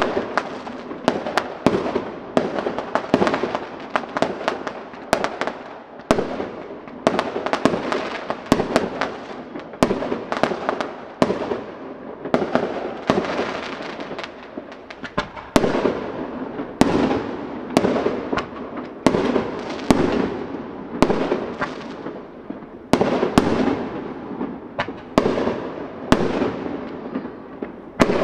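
Fireworks display: aerial shells bursting in a fast series of sharp bangs, one or two a second, each trailing off before the next.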